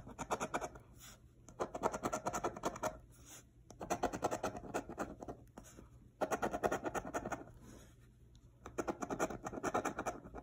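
A coin scraping the scratch-off coating off a lottery ticket in rapid back-and-forth strokes. It comes in short runs of about a second each, with brief pauses between them, about five times.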